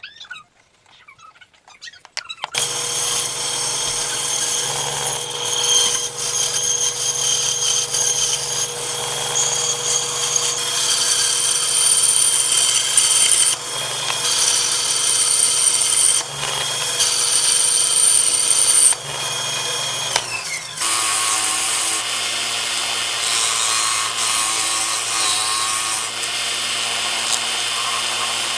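An electric power tool running against wood, starting about two and a half seconds in and running steadily, its tone changing about twenty seconds in.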